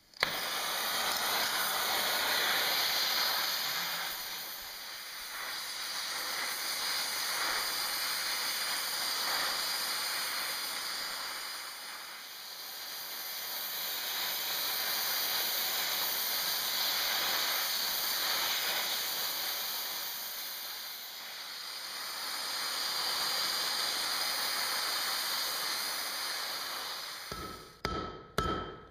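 Gas torch flame hissing steadily as it heats a steel bar, its level slowly rising and falling several times. Near the end, a few hammer blows on the hot bar ring off the anvil.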